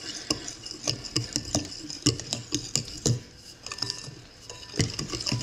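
Danish dough whisk stirring flour into wet batter in a mixing bowl: irregular clinks and taps of the wire loop against the bowl, with a soft scraping stir between them.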